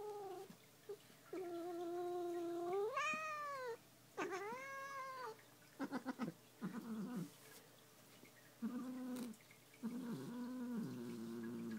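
Long-haired domestic cat growling and yowling in a series of drawn-out moaning calls. The first two swell upward in pitch and fall away, and the later ones are lower and shorter. This is the cat's protest at being handled and groomed.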